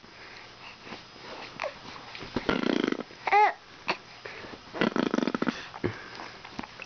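A baby making buzzing tongue-and-lip noises, blowing raspberries twice, about two and a half and five seconds in, with a short high squeal between them.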